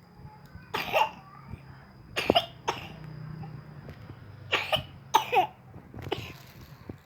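A person coughing repeatedly: about six short coughs in small bouts, some ending in a brief voiced tail.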